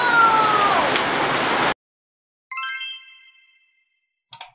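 Rain pouring down while a child lets out one long call that falls in pitch, cut off abruptly. Then, after a moment of silence, a bright chime dings and rings away, followed by two quick mouse-click sound effects near the end.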